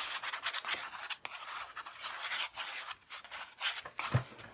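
A pencil scribbling on watercolour paper in quick, scratchy back-and-forth strokes that thin out after about three and a half seconds. A soft knock comes near the end.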